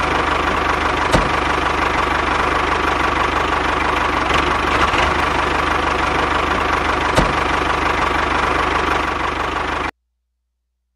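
Tractor engine idling steadily with a fast, even knocking pulse and two brief clicks, then cutting off suddenly about ten seconds in.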